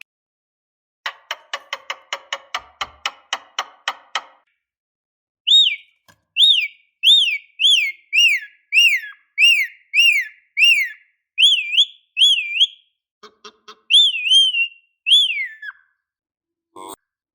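Lovebird calling: a rapid run of clicking chatter notes, about four a second, for some three seconds, then a long series of loud, shrill whistled notes, each rising sharply and falling away, about one and a half a second, with a brief chatter partway through.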